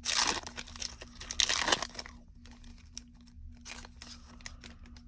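A Topps baseball card pack's wrapper being torn open, two loud rips in the first two seconds, then fainter crinkling as the stack of cards is slid out.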